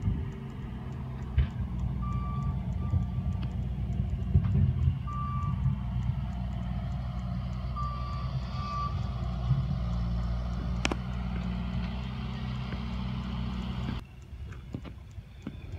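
Engine of a heavy vehicle running with a steady low rumble, while a reversing alarm beeps several times in short pairs. The engine sound drops away sharply near the end.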